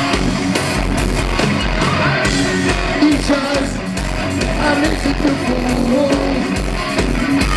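A live heavy metal band playing loud, with a male lead singer singing over the band's guitars, bass and drums, heard from within the audience.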